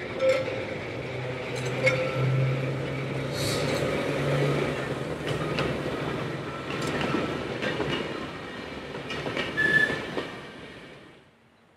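Manx Electric Railway tramcar and trailer running past on curved track: wheels clicking over the rail joints, with short high squeals from the wheels on the curve over a low steady hum. The sound fades away about eleven seconds in.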